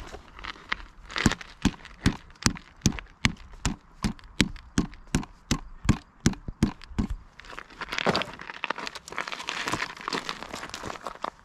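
A mallet pounding ballistic clay in a wooden target frame, a steady run of sharp blows about two and a half a second, flattening the clay back out after a bullet impact. The blows stop after about seven seconds, followed by some scuffing and crunching.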